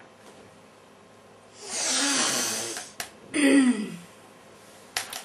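A woman takes a long, noisy deep breath, then lets out a short voiced sigh that falls in pitch. A few small clicks follow near the end.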